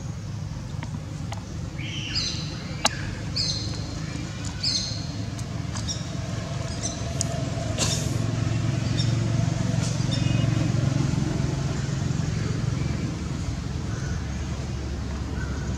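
Outdoor ambience: a steady low rumble, like distant motor traffic, that swells about halfway through. Over it come a few bursts of short, repeated high bird chirps in the first five seconds, and one sharp click.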